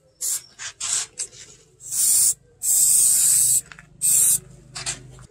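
Aerosol spray can of clear coat hissing in a series of bursts: several short puffs, then three longer sprays, the longest about a second.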